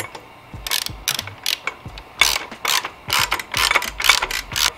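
Ratchet wrench being swung back and forth to tighten an engine guard mounting bolt, its pawl rasping in about ten short strokes, roughly two a second, starting about a second in. This is the bolt being run up snug before it is torqued.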